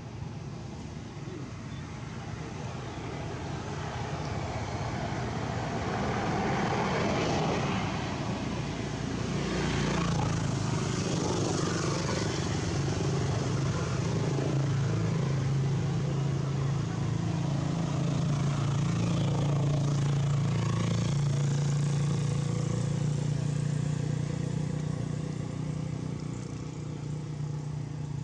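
Motor engine running close by: the sound builds over the first several seconds, then holds a steady low drone that wavers slightly in pitch for about fifteen seconds before easing off near the end.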